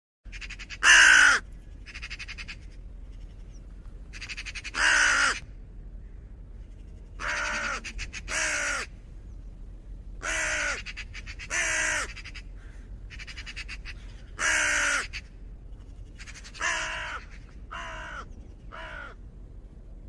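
Common raven calling: about a dozen harsh calls, one every one to two seconds, some fainter than others, the loudest about a second in.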